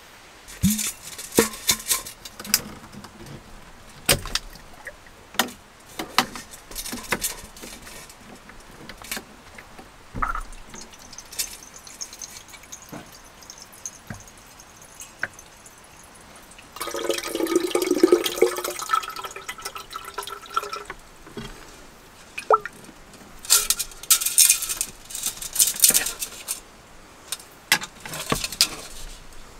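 Water runs from a small tap into a stainless steel camp kettle for several seconds, a little past the middle. Before and after it come sharp metal clinks and clatters as gear is handled, among them a stainless mug.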